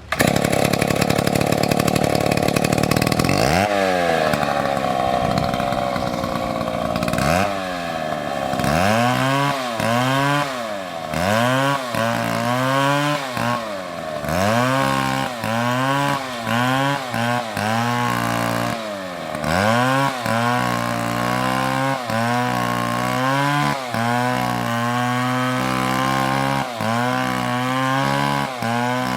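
Chainsaw at high revs cutting into wood. After the first few seconds its pitch dips and climbs back again and again, about once a second, as the chain bogs under load and recovers.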